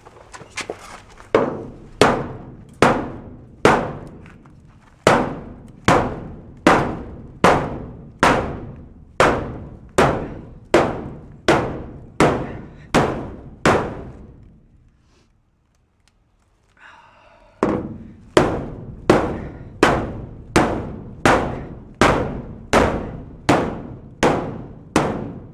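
Steady hammer blows on the sheet-steel wall of a container, about one every 0.8 seconds, each ringing briefly, as a dented corner is beaten back into shape. The blows stop for about three seconds halfway through, then resume at the same pace.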